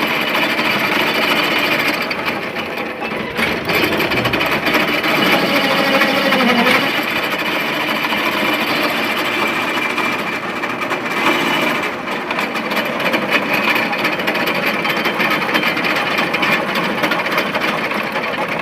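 Sawmill machinery running with a fast, steady mechanical rattle, its pitch sliding briefly up and down a few times.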